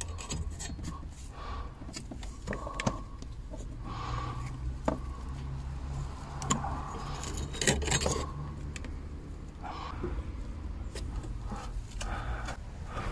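Screwdrivers clicking, tapping and scraping against plastic parts in a car's engine bay: a scatter of small knocks and metallic clinks over a steady low hum.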